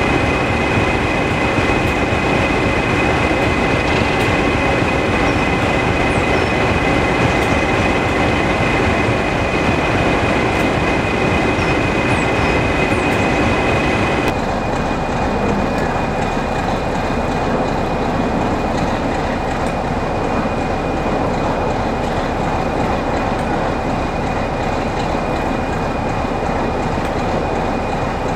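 Class 33 diesel-electric locomotive's Sulzer eight-cylinder engine running as it moves slowly past, with two steady high whining tones over the engine noise. About halfway through, the sound cuts to a quieter, steady diesel train sound.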